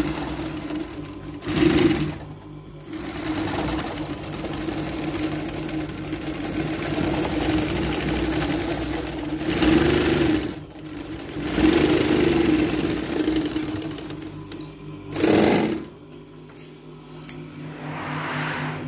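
Industrial carpet binding machine running, stitching binding tape onto the edge of a sisal rug: a steady machine hum with a few brief louder swells, about 2, 10, 12 and 15 seconds in, and quieter near the end.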